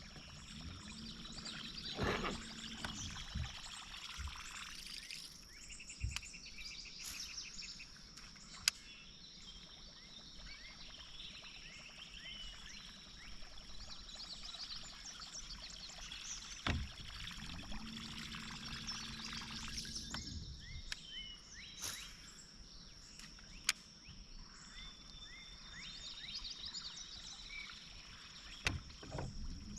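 Outdoor dawn ambience: birds chirping on and off over a steady high insect drone. A brief low hum comes and goes a couple of times, with a few sharp clicks.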